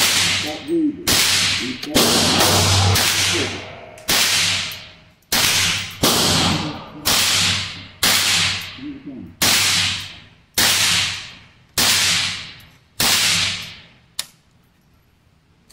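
.22 LR gunshots fired one at a time, about a dozen and a half sharp cracks at roughly one a second, settling into a steady pace near the end. Each crack rings on in the indoor range's echo, and the string stops a little before the end.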